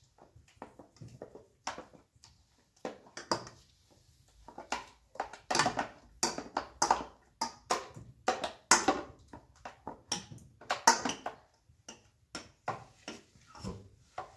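Cooked tomatoes being handled in a metal pot: an irregular run of short wet squishes and clicks as fingers pull the soft pulp and skins apart, busiest in the middle.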